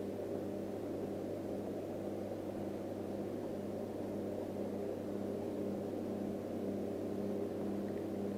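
A boat motor humming steadily at low speed, its tone pulsing slightly and evenly.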